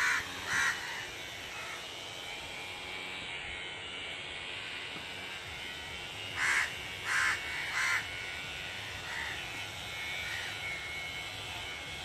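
A crow cawing: a couple of harsh calls at the start, then three more in a row, evenly spaced, about halfway through, over a steady background hiss.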